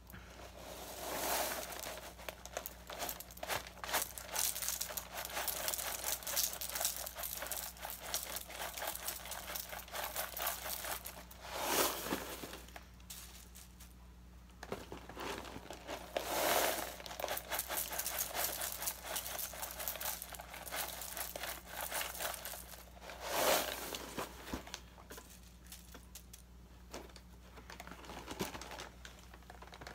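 Frosted flakes cereal pouring from the box's plastic liner bag into a bowl, with the bag crinkling and the dry flakes rustling. It is continuous and crackly, with several louder swells of pouring.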